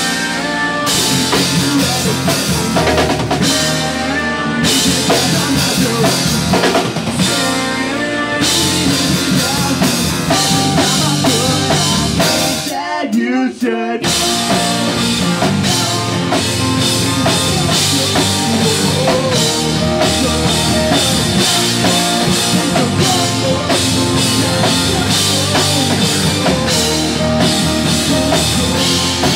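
A pop-punk rock band playing live: drum kit, electric guitars and bass together, with the full band dropping out for about a second roughly halfway through before coming back in.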